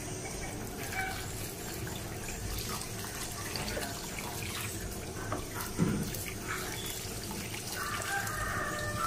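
Kitchen tap running in a stainless steel sink, the stream splashing onto a plate of small dried fish as they are rinsed by hand. A dull knock about six seconds in.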